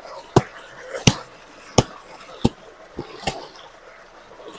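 A wooden washing stick (sota) beating a pile of wet blankets: about six sharp, flat whacks at an uneven pace. The tubewell's outflow gushes steadily underneath.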